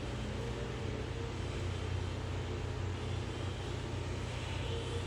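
Steady low background hum under an even haze of noise, with no distinct event.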